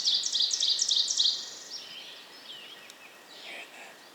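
A songbird singing a rapid string of high chirps and trills that ends about a second and a half in, followed by fainter, scattered high bird notes.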